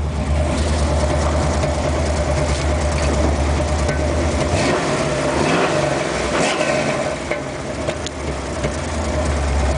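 Ford 289 V8 in a 1962 Mercury Comet, breathing through Flowmaster 40 Series mufflers without a crossover pipe, running with no load: a steady idle, one rev in the middle, then back to idle.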